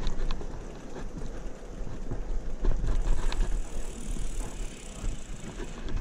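Bicycle rolling along a concrete lane: tyre noise and a few knocks and rattles from the bike, with wind rumbling on the microphone.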